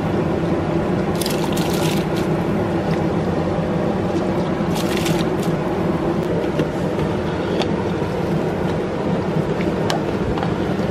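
Washed long-grain rice tipped into a large aluminium pot of boiling water, with two splashy bursts about a second in and about five seconds in, over a steady low rumble of the rolling boil. Light clinks of a perforated ladle in the pot follow near the end.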